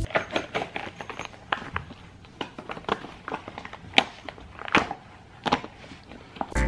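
Silicone shoe cover being stretched and worked over a sneaker by hand: scattered soft rubbery rustles and crackles, with a few sharper snaps in the second half.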